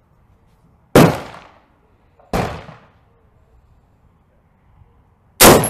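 Three gunshots on a firing line. The first, about a second in, and the last, near the end, are loud and close. A quieter shot falls between them, and each shot rings briefly as it fades.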